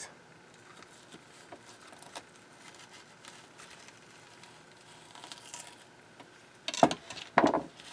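A knife slicing through half-frozen squid tubes on a plastic cutting board: faint scraping and small clicks, with a couple of louder short handling sounds near the end.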